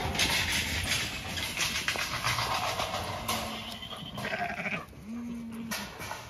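A flock of Zwartbles sheep crowding and scuffling past, followed about halfway through by two low bleats, the second shorter.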